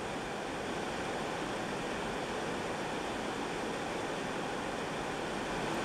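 Mountain stream rushing over rocks and churning into a rock pool: a steady, even rush of water.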